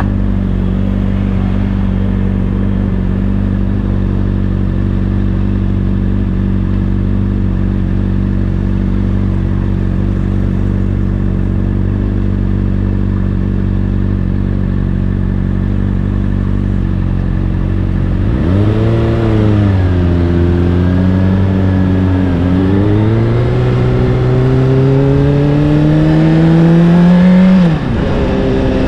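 Honda CBR600RR inline-four with an Akrapovic exhaust, running at a steady low idle. About two-thirds of the way in the revs rise, dip, then climb steadily for several seconds as the bike accelerates. Near the end they drop sharply.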